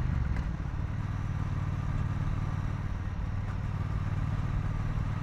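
Engine and exhaust of a 2018 Triumph Bonneville T120, a 1200 cc parallel twin, running steadily while the motorcycle rides along.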